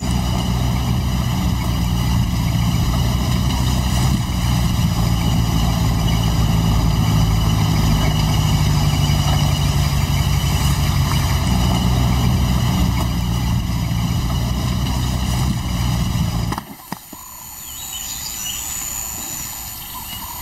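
Open safari vehicle's engine running as it drives, a loud steady low drone that cuts off abruptly about sixteen seconds in, leaving a quieter outdoor background.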